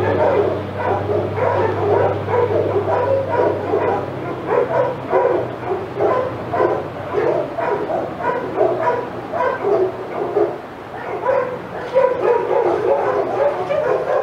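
Several dogs barking at once off camera, rapid overlapping barks at about three to four a second, kept up without a break.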